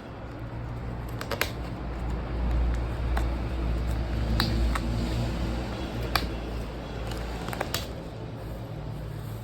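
Sounds of eating rice and curry: a handful of short, sharp clicks and small squishy sounds scattered over a steady low hum of a fan or air conditioner.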